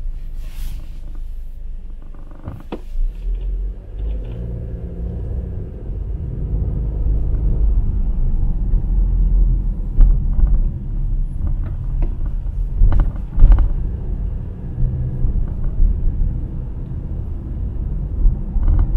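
Low rumble of a car driving, heard from inside the cabin: road and engine noise, with a few sharp knocks scattered through it.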